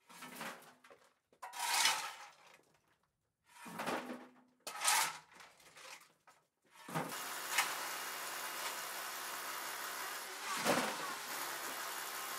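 A shovel scraping and scooping loose stone and mortar rubble, about five separate gritty scrapes in the first half. From about seven seconds a steady background hum carries on under further rubble scraping, with a sharp knock twice.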